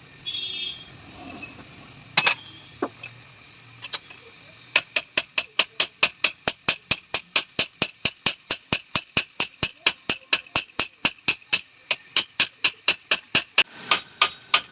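Hammer striking metal in a steady rapid run of sharp, ringing blows, about four or five a second, after a few single knocks. It is work on a motorcycle rear mono-shock absorber, typical of riveting or peening a part.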